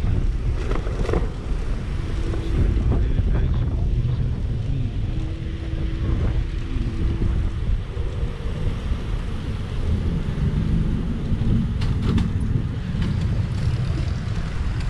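Wind rumbling on the microphone with road noise from a Tazer Mini electric scooter riding along. Faint short steady tones sound twice, a few seconds in.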